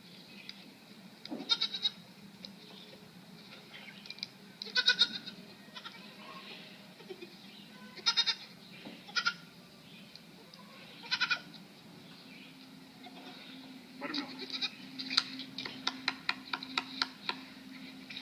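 A goat bleating in about five short calls, spaced a few seconds apart. Near the end comes a quick run of short, clipped sounds over a low steady hum.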